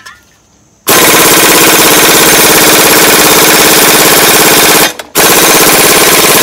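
Air impact wrench hammering on the seized hex shaft of a Gravely cultivator gearbox, in two long, loud bursts with a short break about four seconds in. The shaft does not break loose.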